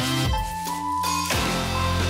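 Electronic outro music: held synth notes over a heavy bass line.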